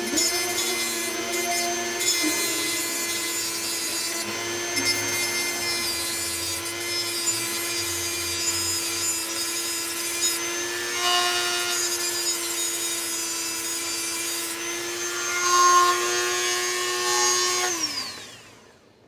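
Corded rotary tool running at a steady whine while grinding a blade edge to sharpen it. Near the end it is switched off and its pitch falls as it spins down.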